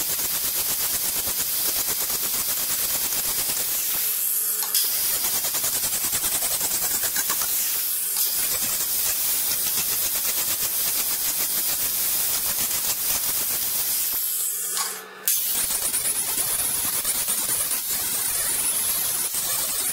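Small angle grinder with a flap disc grinding down and dressing the welds on a steel motorcycle exhaust pipe, a steady hissing grind. It lifts off briefly a few times, most clearly about fifteen seconds in.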